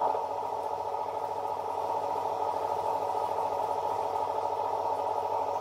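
Air-compressor sound of a diesel locomotive, played by the sound decoder of a Trix H0 V140 model locomotive through the model's small loudspeaker. The compressor runs steadily and evenly.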